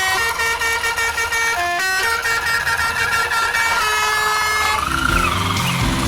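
Background music: held synth notes that change pitch every second or so, with a wavering rising-and-falling tone, and a heavier low beat coming in about five seconds in.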